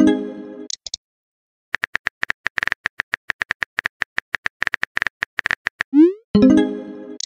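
Simulated phone-messaging sound effects: a short message alert tone at the start, then a fast, even run of keyboard tap clicks as a text is typed, ending near the end with a quick rising swoop and another alert tone.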